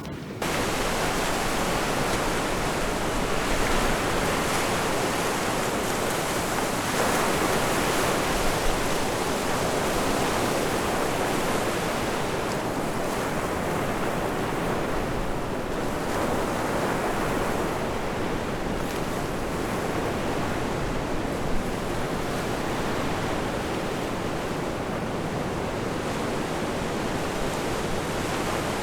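Surf and wind on a beach: a steady rush of waves on the shore mixed with wind, swelling a little now and then.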